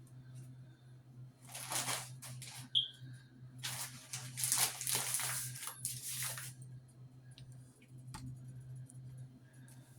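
Uncooked rice grains being poured, hissing and rattling in two stretches, a short one and then a longer one of about three seconds. A steady low hum runs underneath.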